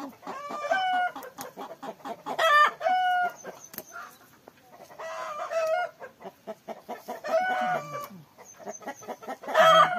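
Chickens calling repeatedly: five short pitched calls, a couple of seconds apart. A fast, fine crackle runs underneath.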